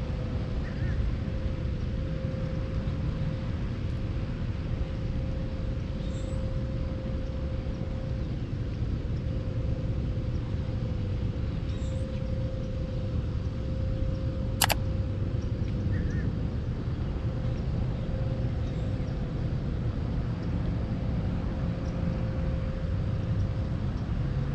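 Steady low outdoor rumble with a constant mid-pitched hum, a few faint bird chirps scattered through, and one sharp click about two-thirds of the way in.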